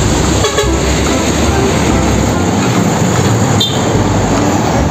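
Loud, steady rumble and rattle of a heavy vehicle in motion.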